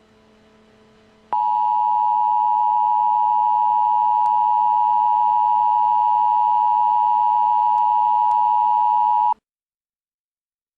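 Emergency alert attention tone: one steady, loud tone that starts about a second in, holds for about eight seconds and cuts off abruptly. It announces the tornado warning that follows. A faint low hum sits under the start.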